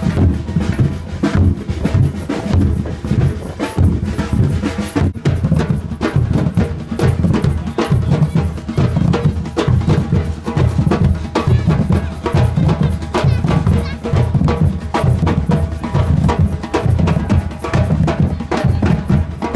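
A percussion group drumming: bass drums and bucket drums beating a steady, driving rhythm.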